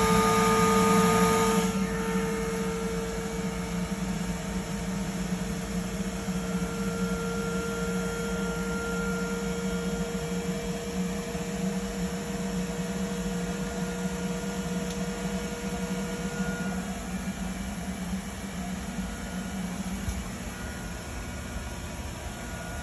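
Lochinvar Knight fire-tube boiler running: a steady hum with faint whining tones from its combustion blower and circulator. A hiss cuts off about two seconds in.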